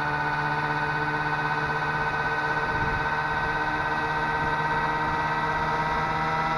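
Electric RC scale helicopter's motor and rotors whining steadily in flight, a tone with many overtones whose pitch shifts slightly near the end. The model's simulated turbine sound is switched off, so this is the bare motor and rotor noise.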